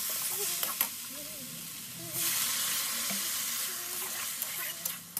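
Okra frying and sizzling in a metal kadhai while a spatula stirs and scrapes through it, with a few clicks of the spatula on the pan. The sizzle gets louder about two seconds in.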